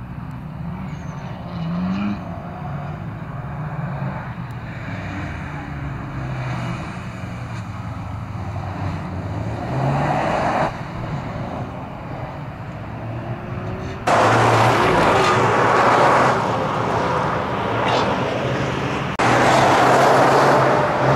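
Toyota GR Yaris's turbocharged three-cylinder engine revving up and down repeatedly as the car is driven hard around a tight course. About 14 seconds in and again near the end the sound turns much louder, a rush of tyre noise and engine as the car slides past close by on grit-covered asphalt.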